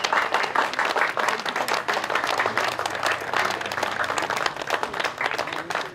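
Crowd applauding, many hands clapping at once without a break.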